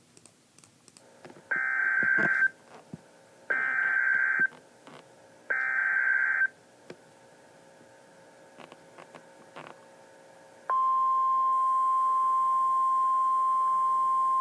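Emergency Alert System severe thunderstorm warning beginning. First come three one-second bursts of the screechy digital SAME header data, two seconds apart. About four seconds later the long, steady attention tone begins.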